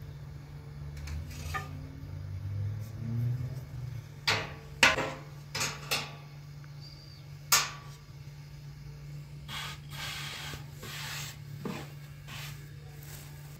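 Kitchen handling sounds of bread-making: about five sharp knocks in the middle, then a couple of seconds of rubbing or scraping, over a steady low hum.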